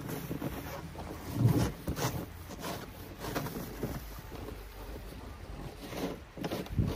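Plastic snow pusher scraping and shoving snow in repeated strokes, the loudest about a second and a half in, with a low wind rumble on the microphone.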